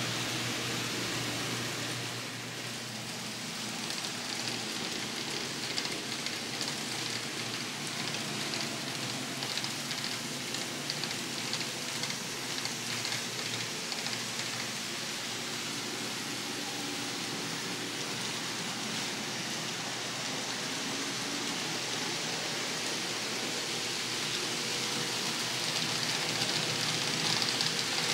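N scale model train running on the layout's track: a steady hiss and rattle of small wheels on rail with a faint motor hum, growing louder near the end as the train comes closer.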